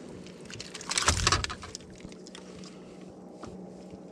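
Handling noise as a landed bass is hooked onto a handheld fish scale in a boat: a loud scuffling bump about a second in, then scattered light clicks over a steady low hum.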